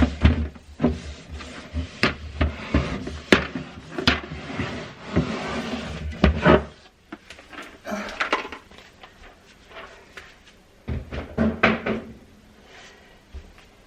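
Kitchen containers and cupboard items being handled and set down, making a run of knocks, taps and clatter. There is a short rustling stretch about five seconds in and a cluster of knocks near the end.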